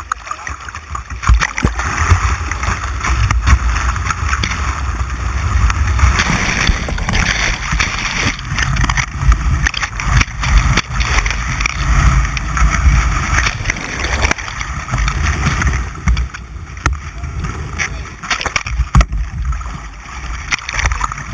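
White-water rapids rushing and splashing around a kayak, picked up by a GoPro mounted on the boat: a steady rush with heavy low buffeting on the microphone and scattered sharp knocks.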